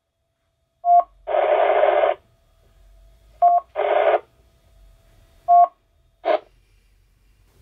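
Abbree AR-2520 dual-band FM mobile radio's receive audio between stations' overs: three short beeps about two seconds apart, each followed by a burst of static hiss, the squelch noise as the transmitting station unkeys. The first hiss burst lasts nearly a second; the later ones are shorter.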